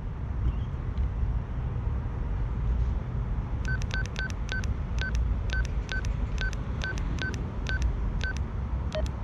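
Key beeps from an Ailunce handheld two-way radio as its arrow keys are pressed to scroll through a settings menu. About a dozen short beeps, all at the same pitch and roughly three a second, start a few seconds in, with a lower-pitched beep near the end, over a steady low rumble.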